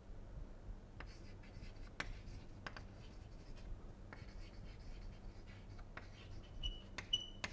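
Chalk writing on a chalkboard: faint scratching and tapping strokes of the chalk as words are written.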